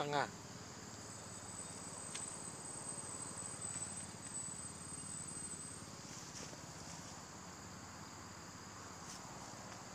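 Insects singing outdoors: a thin, very high-pitched steady whine starts about a second in and stops just before six seconds, over a faint constant insect hiss.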